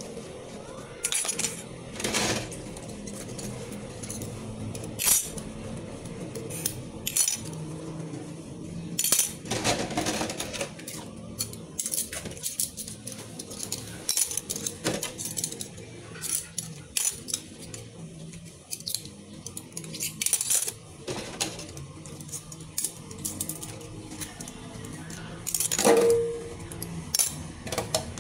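Metal spoons and cutlery being washed by hand in a stainless steel sink: irregular clinks and scrapes as the utensils knock against each other and the sink while scrubbed with a sponge.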